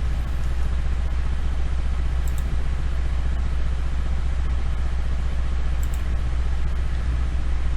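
Steady low hum with a faint hiss over it: the background noise of the narration microphone. There are two faint clicks, about two and a half and six seconds in.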